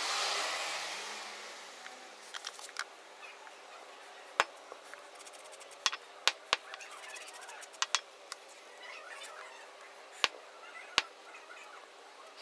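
Sharp, separate metallic clicks and taps, about a dozen scattered irregularly, of tools and parts being handled during work on a motorcycle kick starter. A rushing swell fades away over the first two seconds.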